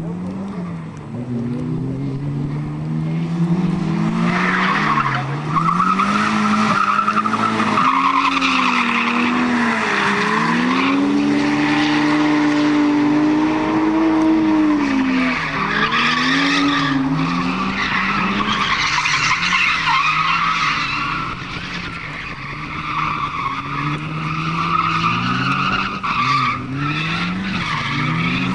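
A drifting car's engine revving up and down again and again, and from about four seconds in its tyres squealing through long sideways slides, easing briefly near the three-quarter mark.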